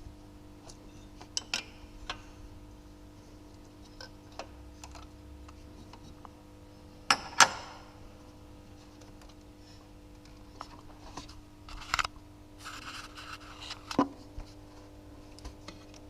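Hand wrench clinking and clanking on the timing-belt tensioner roller nut of a VAZ 2108/2109 engine as the nut is loosened and the belt slackened. Scattered clicks, two loud clanks about seven seconds in, some scraping around twelve seconds, and another clank near fourteen seconds.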